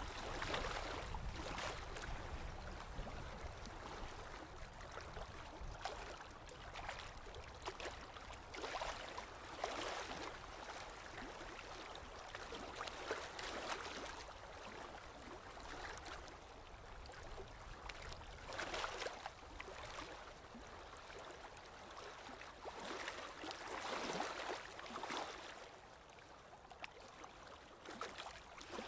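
Moving water splashing and gurgling, with irregular louder surges every few seconds.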